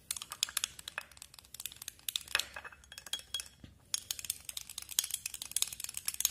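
A spoon stirring a thin alcohol-and-aloe-vera-gel mixture in a glass bowl, clinking quickly and repeatedly against the glass.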